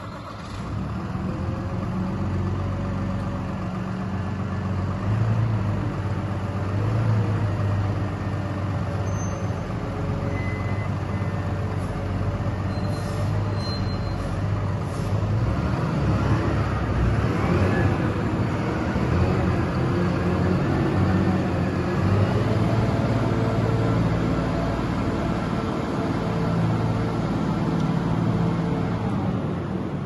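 Diesel engine of a 2017 JCB 419S wheel loader running just after start-up, a steady idle at first, then revving up with a rising pitch around halfway as the machine pulls away.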